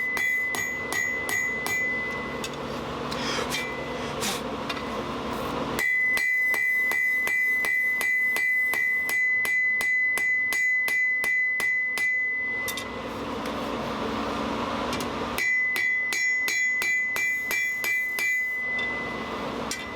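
Blacksmith's hammer striking hot steel on an anvil in steady runs of about three blows a second, each blow with a high ring. There are three runs: one at the start, a long one from about six seconds in, and one near the end, with pauses between them.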